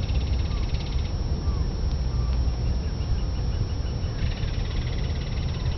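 Small songbirds singing rapid, high trills, one near the start and another from about two-thirds of the way through, with a run of quick high ticks between them. A steady low rumble runs underneath.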